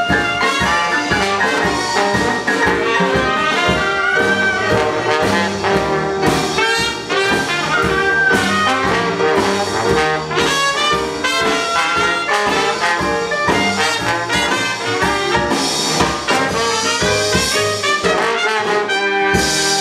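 A traditional New Orleans jazz band playing: trumpet and trombone lead over clarinet, with banjo, piano, string bass and drums keeping a steady beat, and the lead lines waver with vibrato. Just before the end the beat stops on a held final chord and clapping starts.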